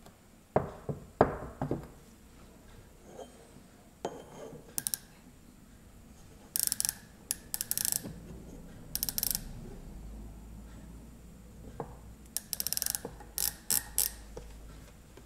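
A few sharp knocks of hardened steel pieces being set against one another, then a micrometer's ratchet stop clicking in quick runs, several times, as the spindle is closed onto the ground steel parallels.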